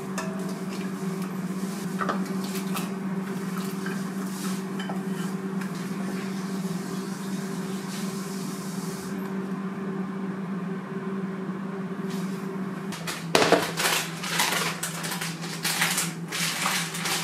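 A metal ladle scooping from a small saucepan and serving miso soup into wooden bowls, with light clinks, over a steady low hum. Near the end, a busier clatter of dishes and a glass food container being handled.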